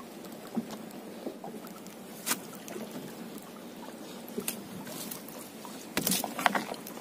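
Wet fishing net being hauled by hand over the side of a small boat, with water splashing and dripping off the mesh and a few knocks against the hull. The knocks come at about two and four and a half seconds in, and a burst of splashing and knocking near the end is the loudest part.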